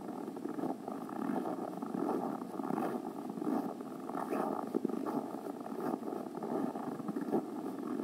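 Steady rustling and crunching from someone walking through snow while carrying the camera, with handling noise on the microphone.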